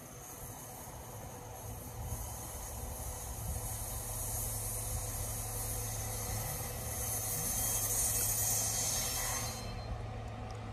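Alstom Coradia LINT 41 diesel railcar approaching in the distance: a steady low engine hum that grows louder, under a high hiss that builds and cuts off suddenly near the end.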